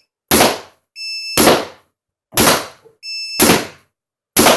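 Geo3 paintball marker firing reballs, five shots at about one a second, with short electronic beeps between some of the shots.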